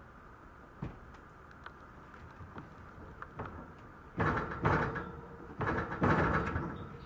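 A Maltese puppy scrabbling about in a wire playpen: a few faint clicks, then two bursts of scraping and rattling, one about four seconds in and one about a second and a half later.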